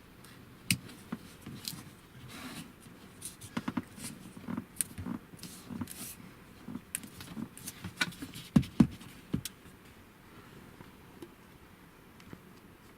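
Handling noise: irregular sharp clicks, taps and rustling of small parts being worked by hand, loudest near the middle, then quiet for the last few seconds.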